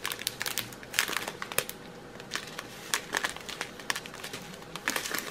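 Small clear plastic zip-lock bags of round diamond-painting drills crinkling as they are handled and pinched, with short irregular clicks and crackles throughout.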